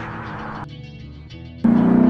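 Ford Mustang 4.6-litre V8 breathing through a Flowmaster Pro Series axle-back exhaust with shorty mufflers: the engine note fades, drops abruptly to a low rumble, then cuts back in loud about a second and a half in as the car accelerates, its pitch rising.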